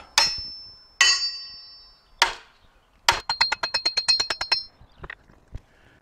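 A 3-pound hammer striking a steel bolt in a heavy plow frame, three hard ringing blows about a second apart, driving out a rusted bolt that had been stuck fast. These are followed by a quick rattling run of lighter metallic clinks.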